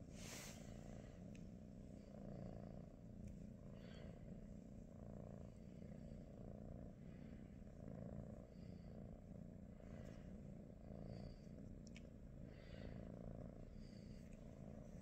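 British Shorthair cat purring softly and steadily, the purr swelling and easing in a regular rhythm about once a second.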